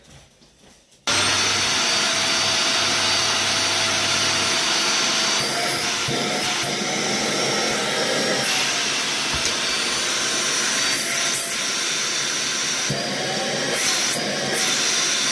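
A Dyson DC50 Rollerball vacuum cleaner switched on about a second in and running with its cyclone bin removed: a steady motor whine and rush of air, whose hiss changes a few times.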